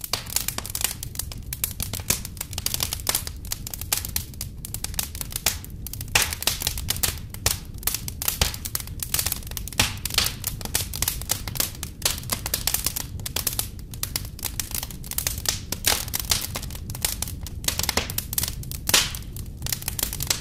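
Large wood bonfire crackling and popping, many sharp cracks a second, over a low steady rumble.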